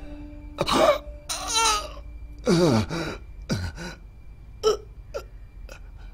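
A man's cries of pain and strain during a fight: a rising yell, a wavering scream, a long cry that falls in pitch, then three short sharp gasps. A low held note of the film score cuts off a little over a second in.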